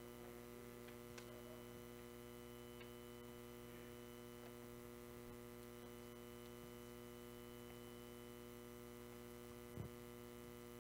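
Steady electrical mains hum over near silence, with a soft thump about a second before the end.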